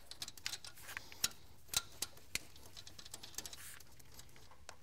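Irregular light metallic clicks and ticks of hands and metal working the injector line nuts on a P-pump Cummins' delivery valves. A few sharper clicks stand out between about one and two and a half seconds in.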